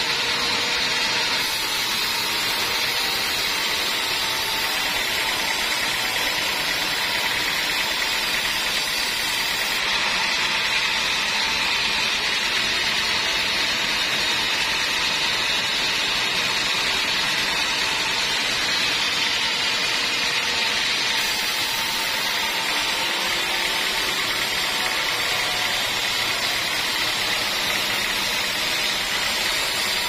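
Band sawmill running steadily, its blade sawing through a teak log, with an even, unbroken machine noise.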